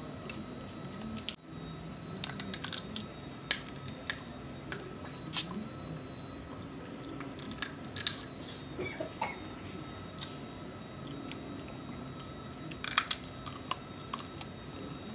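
Snow crab leg shells cracking and snapping as they are broken open by hand and with the teeth: scattered sharp crunches, several in a cluster near the end, which holds the loudest, with chewing between.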